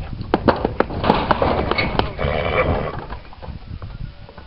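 Palomino Quarter Horse filly moving close by under saddle: a run of sharp clicks and knocks through the first two seconds, over a rushing noise that fades out about three seconds in.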